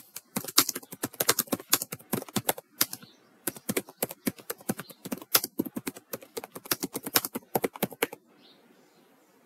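Typing on a computer keyboard: a fast, uneven run of key clicks with a short pause about three seconds in, stopping about eight seconds in.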